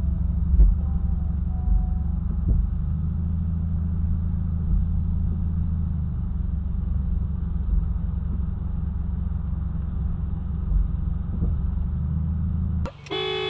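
Steady low rumble of a car's cabin, picked up by a dash cam microphone while the car sits in slow traffic. Near the end the sound cuts abruptly to a steady car horn blast.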